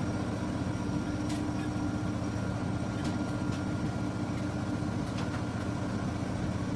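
A steady low mechanical hum with a constant tone over a background rumble, and a few faint clicks.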